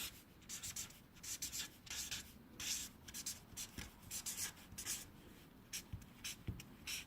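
Light scraping and rubbing: a quick, irregular series of short hissy strokes, with a few faint soft knocks.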